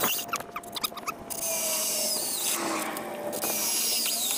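Cordless drill spinning a step bit through the bumper, cutting the hole up to the second step. It runs in a few short spells and then longer ones, with thin high squeals as the bit cuts.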